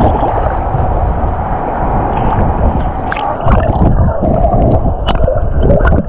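Rough sea close to the microphone: waves sloshing and gurgling without a break, with a few sharper splashes in the second half.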